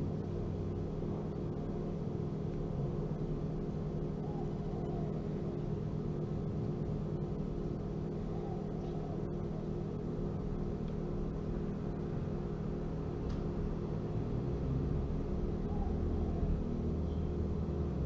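Steady low mechanical hum with a constant tone, the background drone of a running fan or appliance.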